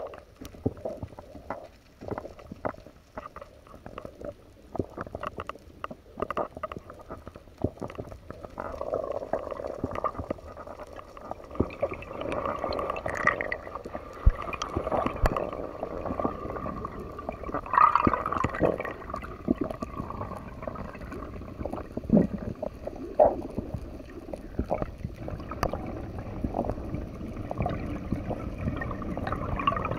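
Underwater sound heard through a diver's camera housing: scattered clicks and knocks over a gurgling rush of moving water that grows from about 8 s in. A faint steady hum sits under it through the middle stretch.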